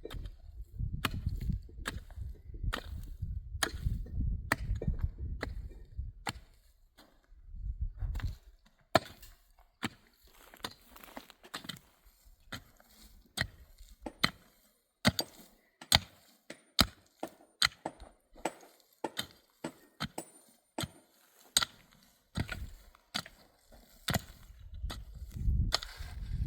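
Wood being chopped by hand: irregular sharp knocks and cracks, one or two a second, with a low rumble under the first few seconds.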